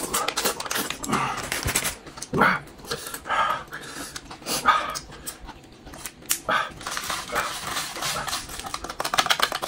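Close-miked eating sounds: irregular chewing, smacking and slurping with loud breathing, coming in short bursts about once a second.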